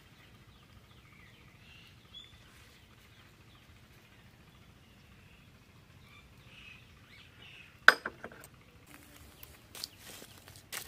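Faint birds chirping in the background. About eight seconds in comes one sharp knock, the loudest sound, then scattered lighter clicks and knocks of wooden sticks being set on the stones of a fire pit.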